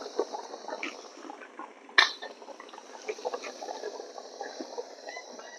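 Wheat flour going into hot ghee in a steel kadhai and being stirred with a spatula: a steady frying sizzle full of small crackles, with one sharp knock about two seconds in.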